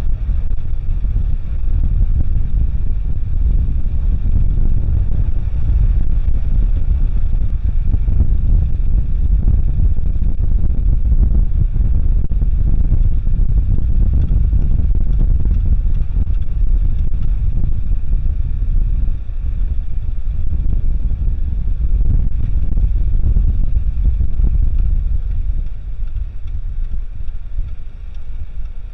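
Wind buffeting a side-mounted camera microphone over the low rumble of an SUV's tyres and running gear on a sandy dirt trail. The rumble eases off a few seconds before the end.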